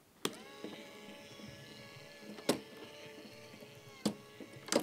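Small LEGO electric motor switching on and running steadily, driving a chain lift through plastic gears, with several sharp clicks from the chain and marbles.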